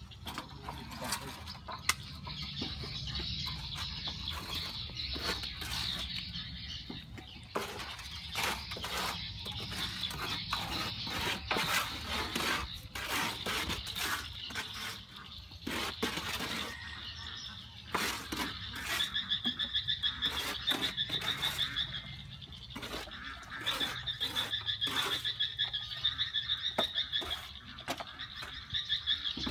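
Steel plastering trowels scraping and tapping on wet cement render, in many short strokes. In the second half a rapidly pulsing high animal call comes in twice.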